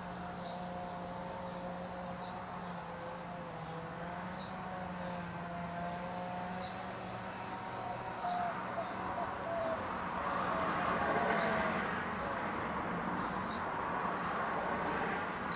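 A bird repeats short high chirps every second or two over a steady low mechanical hum. A broad rush of noise swells and fades about ten to thirteen seconds in.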